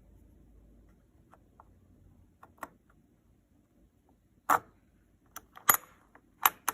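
Sharp clicks and taps from handling a desktop CPU socket's metal load plate and retention lever: a few faint clicks, then three loud ones in the last two seconds.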